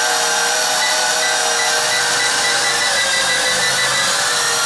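Toy quadcopter's small electric motors and propellers whirring: a steady high whine over a hiss, wavering slightly in pitch as the throttle is held low with the drone on the floor.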